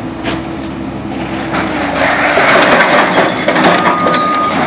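Old garage doors crunching and scraping as they are pressed down into a trailer over a low machine hum, getting louder about a second and a half in, with a short high squeal of straining material near the end.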